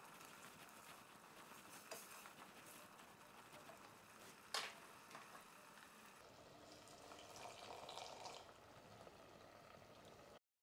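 Risotto of rice, porcini and broth simmering in a stainless steel pot, a faint bubbling and sizzling, with wooden chopsticks stirring at first and a sharp click about four and a half seconds in. The sound cuts off abruptly near the end.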